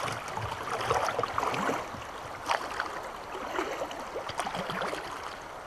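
River water gurgling and splashing over a shallow riffle around a kayak's hull, with many small splashes; it eases off toward the end as the water calms.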